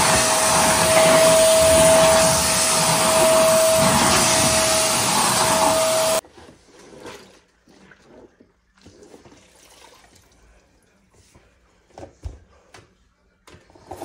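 Vacuum cleaner running with a steady whine over its rushing noise, cutting off abruptly about six seconds in. Afterwards only faint clicks and rustles.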